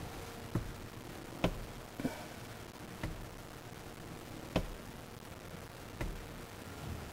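About six light, irregularly spaced clicks and knocks over quiet room tone, the loudest about one and a half seconds and four and a half seconds in.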